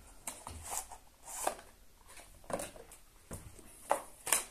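Small cardboard box being handled, opened and tipped: a string of short rustles and scrapes, with a couple of sharper scrapes near the end.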